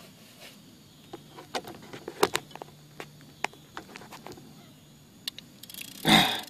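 Rod-and-reel handling during a fight with a large blue catfish: irregular clicks and knocks with a faint low hum, then a short loud rush of noise about six seconds in.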